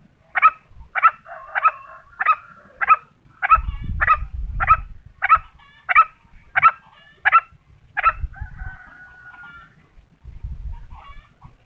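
Green junglefowl calling: a rapid, even series of short sharp calls, about one and a half a second, that stops about eight seconds in. Low rumbles are heard under the calls a few times.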